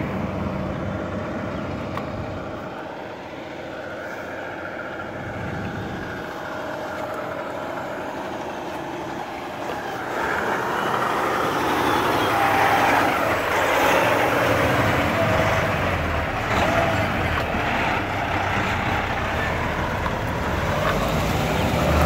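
Diesel tandem-axle dump truck, loaded with asphalt, approaching and passing close by: engine and tyre noise grows louder to a peak about halfway through, then carries on strongly as the truck pulls away.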